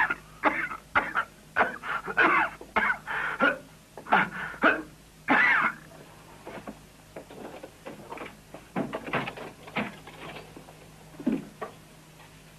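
A man laughing in a run of short bursts for about six seconds, then fainter scattered clicks and knocks.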